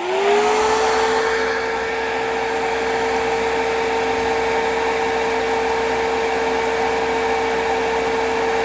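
High-airflow 12 V fan in a 3D-printed fume extractor spinning up, its pitch rising and settling within the first second. It then runs steadily at speed with a constant whine over a loud rush of air.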